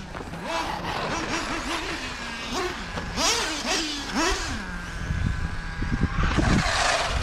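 Ultimate M5 3.5 cc nitro engine in a Mugen MBX7R 1/8 off-road buggy, revving up and falling back again and again as the buggy is driven. Toward the end there is a louder rumble and a brief loud rushing noise.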